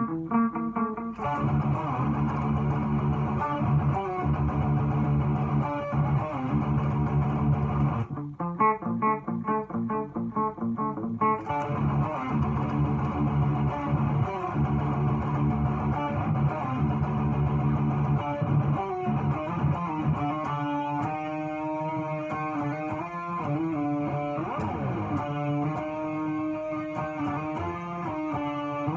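Electric guitar in drop D tuning playing a heavy metal riff, choppy and rhythmic for a few seconds about eight seconds in, then moving into clearer single-note melodic lines for the last several seconds.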